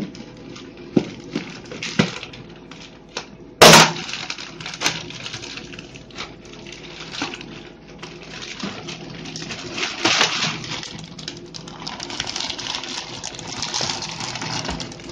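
Clear plastic fish bag crinkling and rustling as its rubber-banded neck is worked open by hand, with scattered clicks and one sharp, loud snap about four seconds in. Denser crinkling builds from about nine seconds in as the water-filled bag is handled and lowered into the aquarium.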